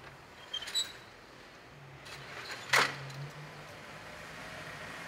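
Folding metal lattice security grille being drawn shut across a shop door: a few light metallic clicks and rattles, then one sharp metal clank a little under three seconds in, over a low steady street hum.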